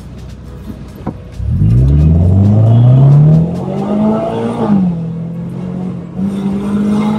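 Supercharged Toyota GT86's 2.0-litre flat-four with a catback exhaust, heard from inside the cabin under hard acceleration. The engine note rises steeply and loudly from about a second and a half in, falls sharply at a gear change a few seconds later, holds steady, then steps up again near the end.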